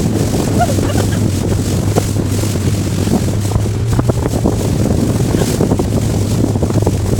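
Boat motor running steadily with a constant low hum, wind buffeting the microphone.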